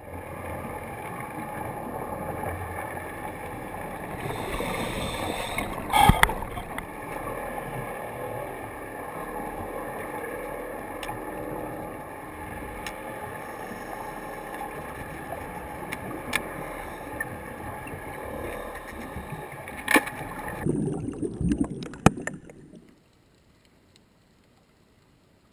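Underwater sound picked up by a camera near the seabed: a steady rushing noise with a faint steady hum. A few sharp knocks and low thumps come through, and the sound cuts off suddenly about 23 seconds in.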